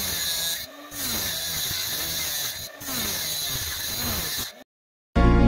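Homemade mini circular saw, a small 3.6-volt DC motor driving a sheet-metal disc blade, cutting into a wooden craft stick: a rasping buzz whose pitch sags and recovers as the blade bites and is eased off. It drops out briefly twice and stops a little before the end, when music starts.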